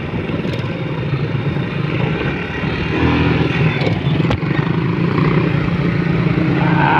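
Motorcycle engine running while riding, a steady low drone that gets louder about three seconds in. A single sharp click a little after four seconds.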